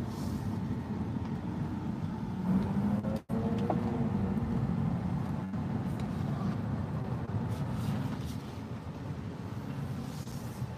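Car cabin noise while driving slowly: a steady low engine and road hum heard from inside the car. The sound cuts out for an instant about three seconds in.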